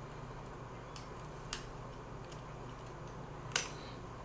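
A few short, sharp clicks over a steady low hum, the sharpest about three and a half seconds in.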